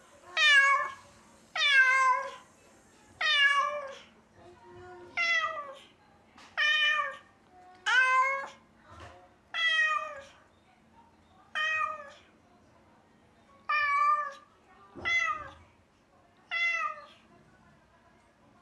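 A cat meowing over and over, about eleven loud drawn-out cries spaced a second or two apart, stopping shortly before the end. It is crying for owners who have left the room, the plaintive calling that the owner suspects is separation anxiety.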